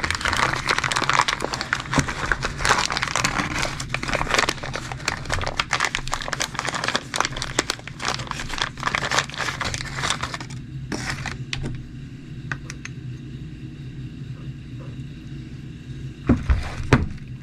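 Packaging of a new RC car motor crinkling and tearing as it is opened, with dense crackling for about ten seconds. It then goes quieter, with a few light clicks and a knock near the end.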